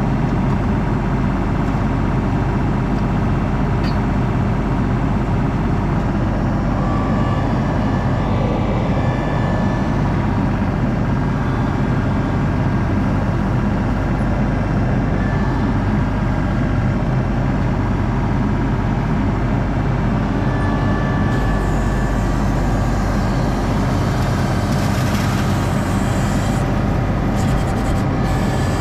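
ASV RT-40 compact track loader's diesel engine running steadily, heard from inside the operator's cab. The engine comes under heavier load about three quarters of the way through as the loaded bucket is raised, with a few knocks near the end.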